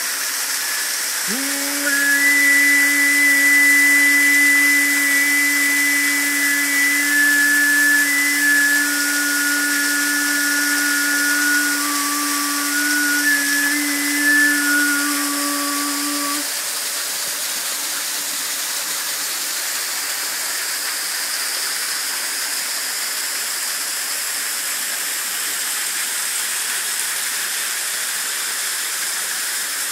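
Water of a small waterfall splashing steadily onto rocks and into a pool. From about a second in until about halfway through, a steady low drone sounds over it, with several high held notes stepping in pitch above the drone. Then the drone and the notes cut off, leaving only the water.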